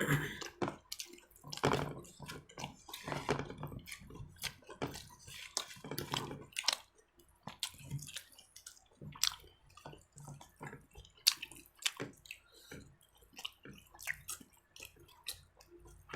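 Close-up eating sounds: wet chewing and lip smacking, with many irregular small clicks.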